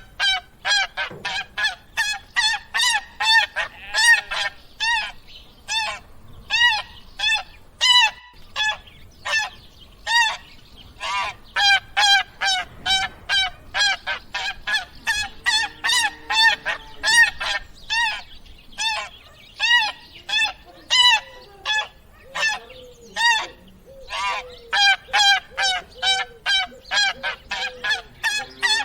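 A flock of geese honking, many short calls in quick succession and overlapping.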